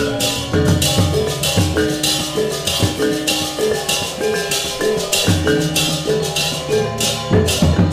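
Balinese gamelan gong kebyar playing an instrumental tabuh petegak. Bronze metallophones and kettle gongs ring in fast patterns over kendang drum strokes, with bright metallic clashes on a steady pulse.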